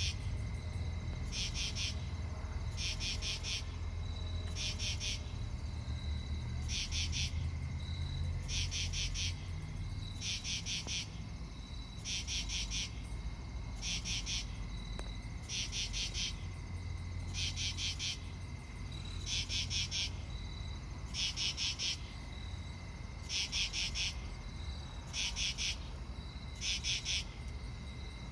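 Insect call: short, buzzy, pulsed bursts repeated about once a second, often in pairs, over a steady faint high hum. This is the mystery call the recordist took for a bird.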